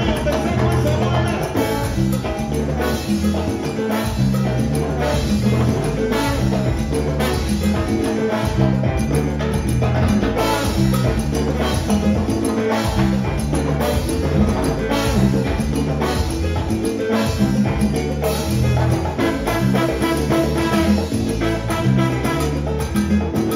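Live salsa band playing, led by a trombone section over keyboard and conga percussion, with the chorus singing at the start.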